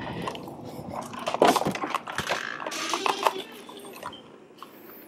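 Handling noise of a front door being opened and someone stepping into a house: scattered clicks and knocks, the loudest about one and a half seconds in.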